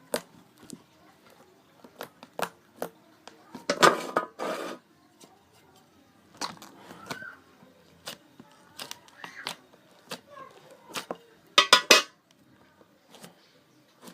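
Slime being handled: a run of short sticky clicks and knocks, with two louder bursts about four seconds in and near the end.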